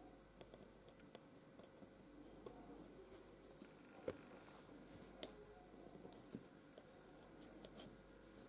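Faint, scattered small clicks and taps of a pointed dip pen and its wooden holder being handled on textured paper, with one sharper click about four seconds in.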